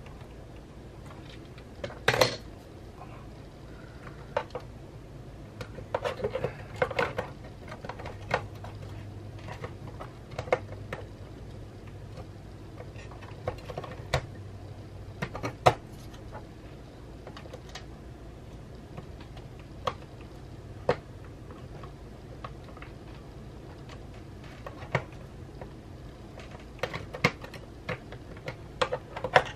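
Irregular clicks, taps and small knocks of parts being handled inside an opened Mac mini (mid-2011) case as pieces are fitted and set down, over a low steady hum. The loudest is a short rattle about two seconds in, with more clicks clustered near the end.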